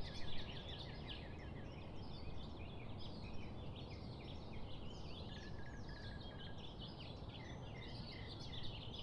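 Many birds chirping at once in a dense, overlapping chorus of short, high, mostly falling chirps, over a steady low background rumble.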